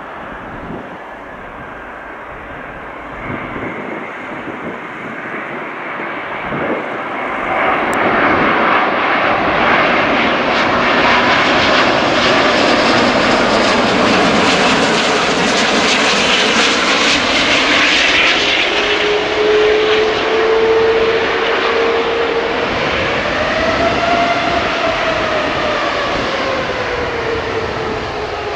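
Jet airliner on landing approach passing low overhead: a Virgin Atlantic Airbus A350's Rolls-Royce Trent XWB turbofans. The engine noise builds to its loudest about halfway through, then eases, with a whining engine tone that swoops up and then drops in pitch near the end.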